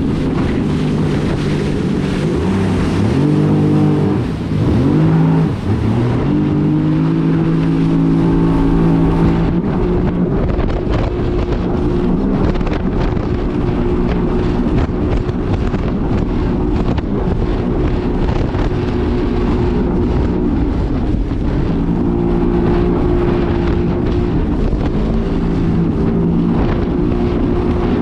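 Yamaha EX Sport WaveRunner's 1049 cc three-cylinder four-stroke TR-1 engine running under way. Its pitch rises and dips a few seconds in as the throttle changes, then holds steady. Wind buffets the microphone.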